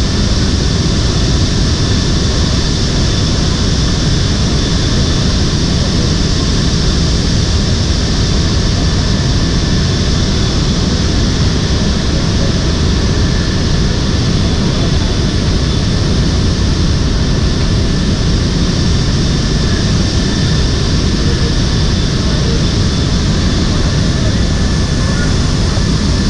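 Steady in-flight noise inside the cargo hold of a C-17 transport jet: a loud, even rush of engines and airflow, heaviest in the low end, with a faint steady high whine over it.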